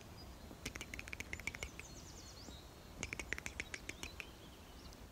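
Small birds chirping faintly in two quick twittering bursts, about a second in and again about three seconds in, with a few short rising and falling whistles between them.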